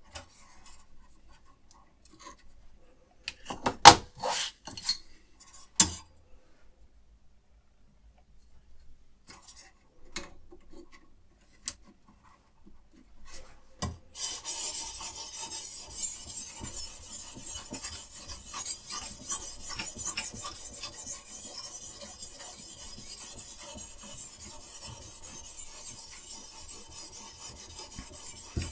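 A few knocks and clicks, the loudest about four and six seconds in. Then, from about halfway, a diamond sharpening stone on a guided knife sharpener rasps steadily along a clamped knife blade.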